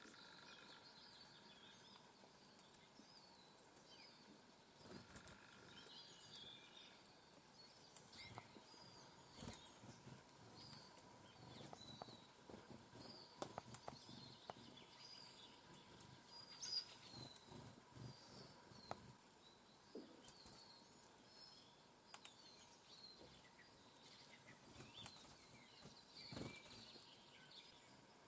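Faint calls and chirps of small songbirds, with scattered soft taps and clicks.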